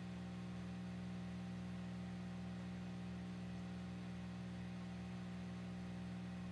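A steady low electrical hum with a buzzy edge over a faint even hiss, with no change throughout.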